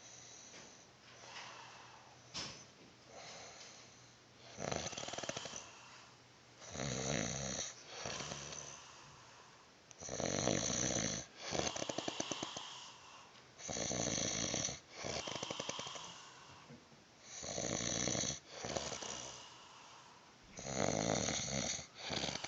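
A man snoring heavily in a regular rhythm. After a few faint breaths the snores grow loud from about five seconds in and come roughly every three and a half to four seconds, each breath making a harsh snore followed by a fast, fluttering rattle.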